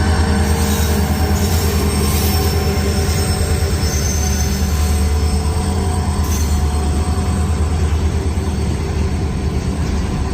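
WDG4D diesel locomotive running close by: a loud, deep, steady engine drone with a pulsing rumble, unchanged throughout.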